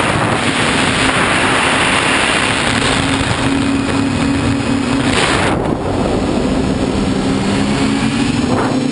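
TBS Discovery quadcopter's electric motors and propellers whining in flight, the pitch stepping up and down as the throttle changes. Wind rushes over the microphone for the first couple of seconds and again briefly about five seconds in.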